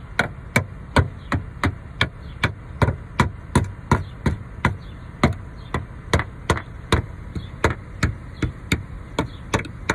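A piece of wood knocking lightly and steadily on the underside of a car's steel fuel tank, about three even knocks a second. The tapping is meant to jar a stuck fuel-gauge float back into place.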